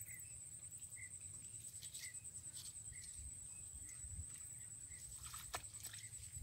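Faint outdoor wildlife ambience: a steady high-pitched insect buzz, with a short chirp repeating about once a second. A single sharp click sounds a little after five seconds in.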